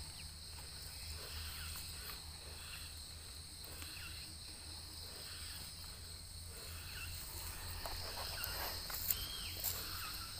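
Steady high-pitched trilling of insects, with hands rustling faintly through dry oil-palm fibre while picking mushrooms, and two small snaps near the end.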